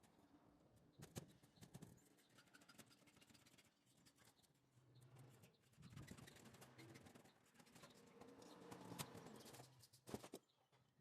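Near silence, with a few faint clicks and taps.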